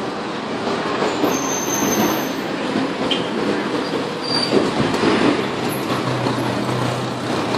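Steady rattling rumble of a vehicle in motion, with a low engine hum coming in about six seconds in.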